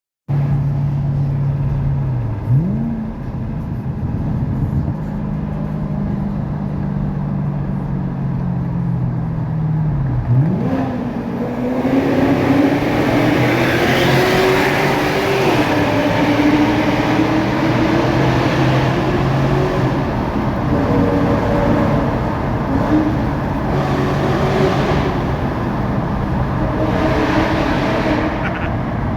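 BMW E39 V8 engine running through a tunnel, echoing off the walls. It holds a steady note with a quick rev blip early on. About ten seconds in the revs jump and climb under hard acceleration, then hold high with small rises and falls.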